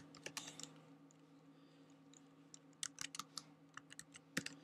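Computer keyboard being typed on, faint, in short runs of key clicks: a few at the start, a quick run about three seconds in and more near the end.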